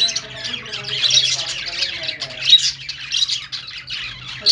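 A group of budgerigars chirping and squawking at once, many short, high calls overlapping without a break, with some lower warbling notes mixed in.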